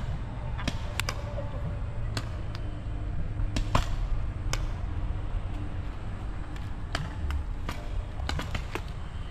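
Paintball markers firing: sharp pops at irregular intervals, several close together near the end, over a low rumble of wind on the microphone.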